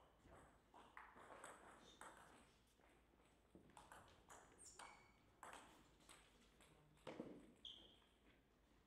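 Table tennis rally: a celluloid-type ball clicking off the paddles and table in a run of quick, light hits about half a second apart, with a short squeak near the end.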